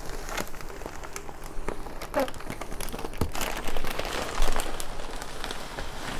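Bubble wrap and a clear plastic fish bag crinkling and rustling as they are handled, a run of irregular crackles with the loudest rustles about four seconds in.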